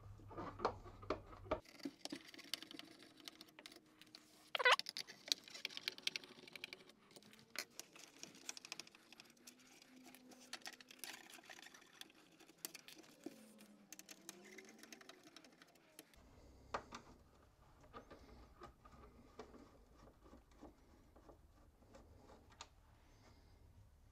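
Phillips screwdriver backing screws out of a plastic car grille: scattered small clicks and scrapes of the metal bit and screws on plastic, with one sharp, falling squeak about five seconds in.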